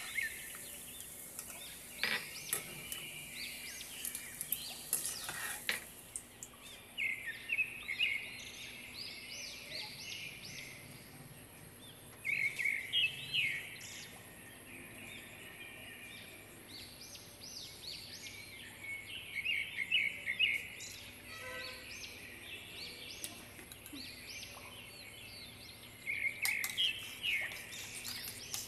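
Small birds chirping in clusters of quick high notes every few seconds. For the first few seconds this sits over the hiss of nuts deep-frying in oil, and near the end a spoon clinks against a glass bowl as sauce is stirred.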